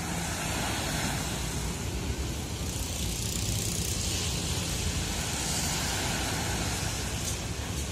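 Wind on the microphone and small waves washing on the shore: a steady rush with a low rumble, the hiss swelling about three seconds in.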